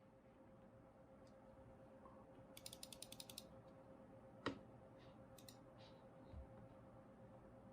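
Near quiet with a faint steady hum, broken by scattered small clicks: a quick rattle of about ten ticks around three seconds in and one sharp click a second later.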